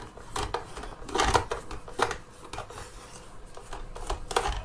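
Phillips screwdriver turning screws out of a Dyson V10 vacuum's plastic housing, with the unit handled in the hands: scattered small clicks and scrapes, a cluster of them about a second in.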